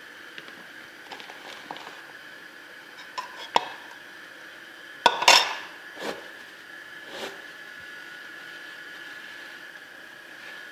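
A metal spoon knocking against a bowl. There are a few light clicks about three seconds in, a louder clatter just after five seconds, then two fainter knocks.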